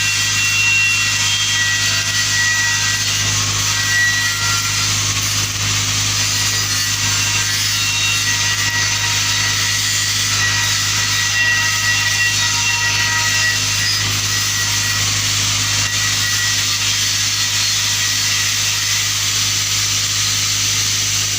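TIG welding on steel pipe: a steady arc hiss over a constant low electrical hum from the welding machine, unbroken throughout.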